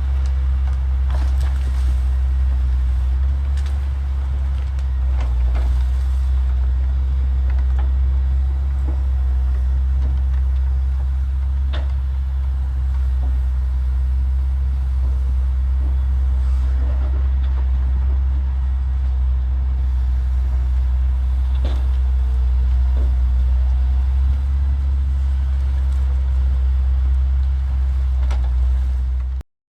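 Heavy diesel engine of earthmoving equipment running steadily with a deep low rumble, with occasional light knocks and clicks; the sound cuts off suddenly near the end.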